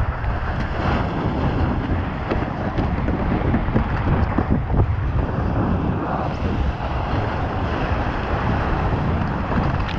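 Water rushing and splashing around a stand-up paddleboard as it rides a small wave, with heavy wind buffeting on the microphone.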